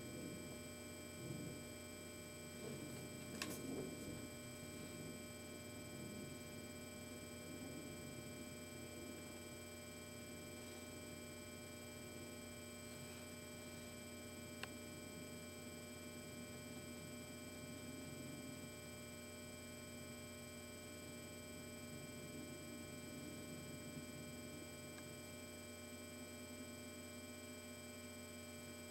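Steady electrical mains hum with several thin, high whining tones running under it. There are faint rustles and a sharp click about three and a half seconds in, and a second small click about halfway.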